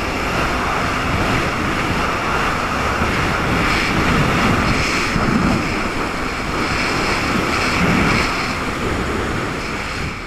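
Steady rush of wind buffeting the microphone and water hissing past during a fast ride across open sea.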